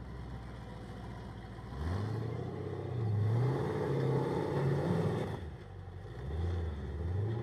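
Rock buggy's engine revving in bursts as it crawls up concrete blocks. It climbs in pitch about two seconds in and is held high and wavering for a few seconds. It then drops off and revs again near the end.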